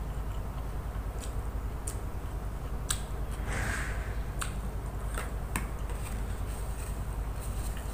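A person slurping noodles in soup and chewing, with a handful of sharp clicks of fork and spoon or lips, and a longer slurp a little after three seconds in. A steady low hum runs underneath.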